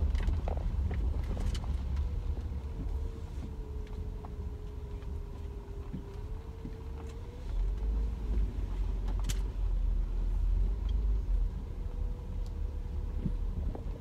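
Car driving with the driver's window open: a low engine and road rumble with a steady hum that wavers in pitch. The rumble grows louder about halfway through, and a few light clicks sound over it.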